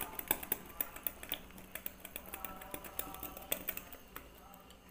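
Wire whisk clicking and scraping against a glass bowl while dry flour is stirred into cake batter. The rapid, irregular clicks thin out toward the end.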